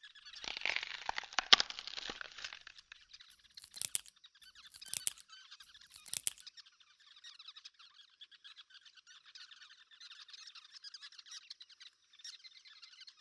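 A steady outdoor chorus of many small, high chirping calls from birds, frogs or insects. A louder burst of rustling and crackling comes about half a second in and lasts about two seconds, and a few sharp snaps follow a couple of seconds later.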